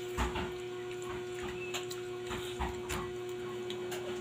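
A steady electrical hum, with a few soft clicks and smacks scattered through it from handling and eating a peeled balut (boiled fertilised duck egg).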